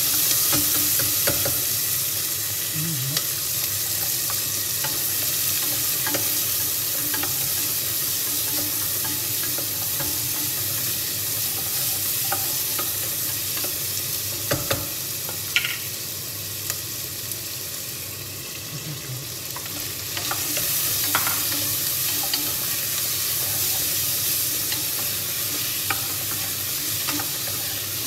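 Chopped vegetables sizzling as they sauté in a stainless steel saucepan, stirred with a spatula that scrapes and taps against the pan. The sizzle eases briefly about two-thirds of the way through, then picks up again.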